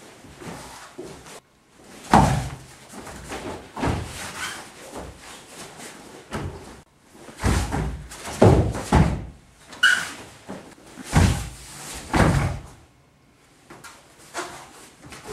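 Heavy thuds of bodies and feet landing on a padded mat as jujutsu throws are made, with quieter shuffling and cloth rustling between. The thuds come in clusters, the thickest run about eight to nine seconds in and again around eleven to twelve.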